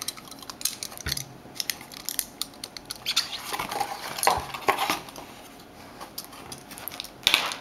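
Cardboard shipping mailer handled and pulled apart by hand, with scattered clicks, taps and rustling, and a louder rustle near the end.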